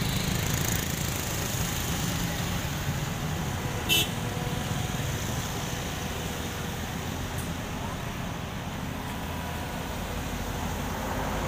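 Komatsu hydraulic excavator's diesel engine running steadily as it lowers a concrete box-culvert section, with one sharp metallic clink about four seconds in.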